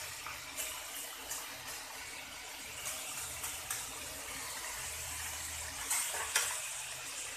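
Potato slices deep-frying in hot oil in a kadhai: a steady sizzle, with a few light clicks of a metal spatula and wire skimmer against the pan.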